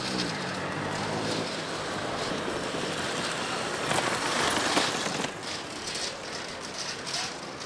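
City square ambience: a steady wash of street noise, swelling louder about four to five seconds in.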